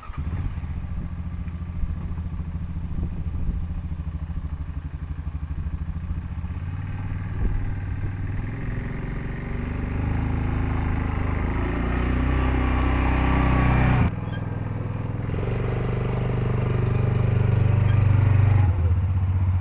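An engine running at a steady pace, its revs rising for a few seconds in the middle. The sound breaks off abruptly twice and resumes at a steady pitch.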